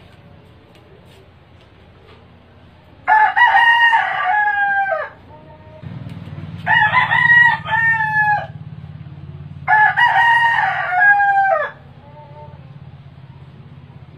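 A rooster crowing three times, each crow about two seconds long, with a little over a second between them.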